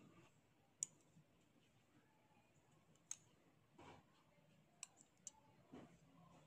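A handful of light, sharp clicks and taps from small tabletop items being handled (scissors, a plastic spoon and a glass bowl), spread out with very little sound between them.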